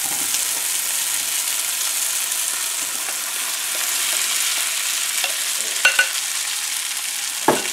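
Green peas sizzling in a little oil in a nonstick frying pan as spiced mashed potato is tipped in and stirred with a spoon, a steady frying hiss. A few spoon knocks come about six seconds in and near the end.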